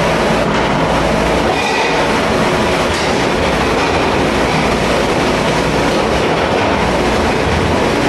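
Loud, steady mechanical running noise with a continuous rattle, typical of a commercial dish machine at work in a dish room.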